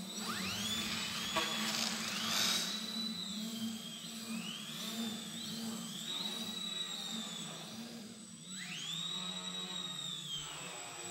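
Electric motor and propeller of a 33-inch Wicked Slick foam 3D aerobatic model plane whining, the pitch sweeping up and down as the throttle is worked. It drops away briefly about eight seconds in, then climbs back to a high steady whine.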